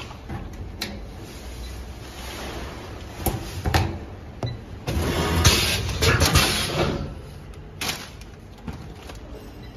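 Vertical packing machine working through a manual bag-making cycle: a few seconds of clattering mechanical noise about five seconds in, with sharp clicks before and after.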